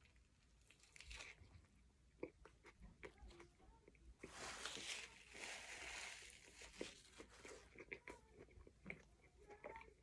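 Faint mouth sounds of a person biting into and chewing a honey mustard chicken sandwich: small scattered smacks and clicks, with a denser crunchy stretch about four to six seconds in.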